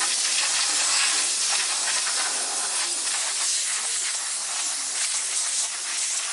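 Compressed air hissing steadily from a hand-held air hose blown over air-set sand moulds and cores, the hiss wavering slightly as the nozzle moves.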